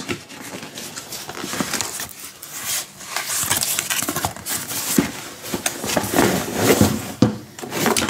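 Cardboard packaging of a new oscillating multi-tool being opened and unpacked by hand: flaps and inner cardboard rustling and scraping, with a few sharp knocks as the tool and its cord are handled.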